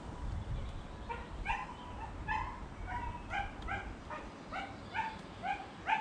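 An animal calling repeatedly: about a dozen short, pitched calls, two or three a second, the last one sliding sharply upward.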